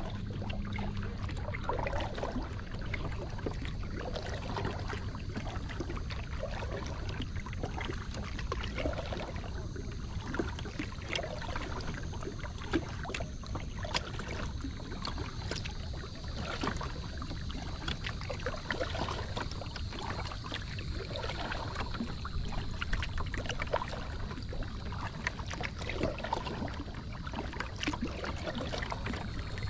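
Water lapping and trickling against the hull of a moving kayak on a lake: many small irregular splashes and drips over a low steady rumble.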